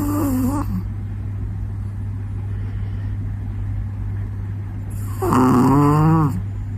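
Sleeping puppy snoring. A pitched, wavering snore fades out just after the start, and a louder one comes about five seconds in and lasts about a second. A steady low hum runs underneath.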